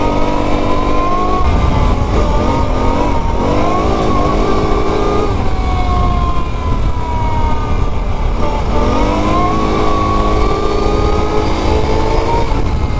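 Can-Am Renegade 1000 XXC ATV's V-twin engine pulling hard as the quad gathers speed on a dirt trail. Its pitch rises and falls several times with the throttle, over a steady low rumble.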